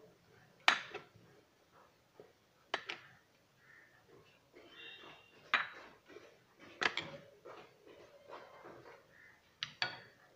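Maize-flour dough being rolled out and patted by hand with a rolling pin on a rolling board: soft rubbing, broken by sharp knocks of the pin against the board every second or two, two in quick succession near the end.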